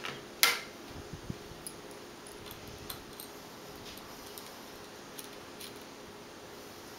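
Small clicks and ticks of a Phillips screwdriver working the tiny screws that hold a laptop LCD panel in its lid: one sharp click about half a second in, then scattered light ticks, over a low steady hum.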